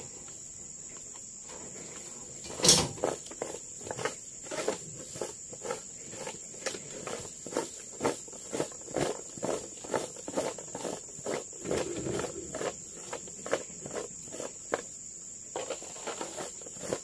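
A steady high insect drone throughout, over many short rustling knocks about two a second as loose oil palm fruitlets are picked up off the ground by hand, with one louder thump about three seconds in.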